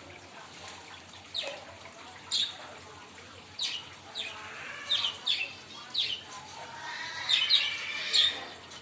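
Parrot giving short, sharp squawks, about nine of them at irregular intervals, each one falling in pitch.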